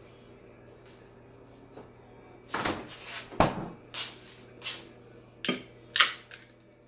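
Kitchen clatter: a run of about seven sharp knocks and clinks of dishes and utensils being handled, starting about two and a half seconds in, over a low steady hum.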